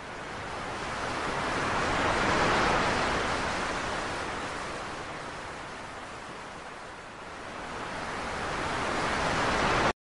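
Small ocean waves breaking and washing up a pebble beach: the surf swells to a peak, eases off, then builds again with the next wave before cutting off suddenly at the end.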